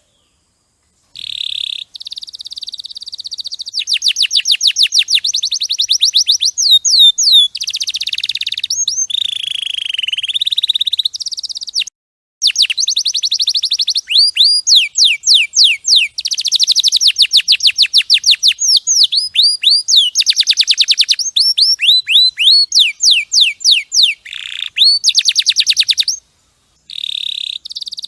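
Domestic canary singing: long, fast trills of rapidly repeated high notes and short sweeping phrases, with a few brief silent breaks between passages.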